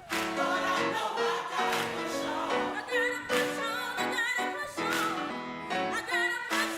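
Background music: an upbeat track with a steady beat, brass or keyboard chords and a sung vocal line.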